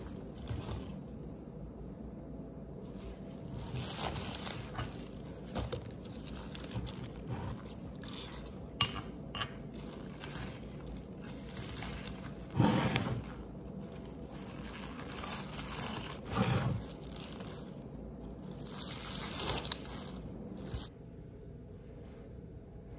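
Green onions being cut with a knife on a wooden cutting board: irregular crunching cuts and scrapes, with two louder knocks in the second half.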